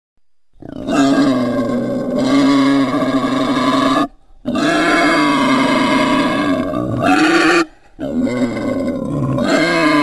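Wild boar vocalizing in three long, loud calls of a few seconds each with short breaks between them, the second rising in pitch near its end.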